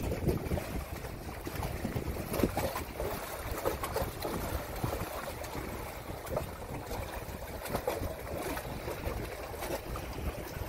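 Wind buffeting the microphone, with choppy river water slapping and splashing against a concrete wall.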